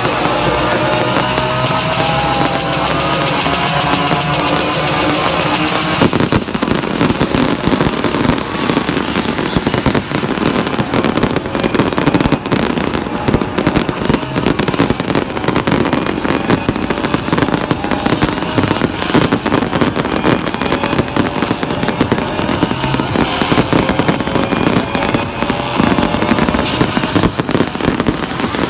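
Aerial fireworks display: a dense, continuous barrage of crackles and bangs that starts suddenly about six seconds in. Music plays underneath at the start.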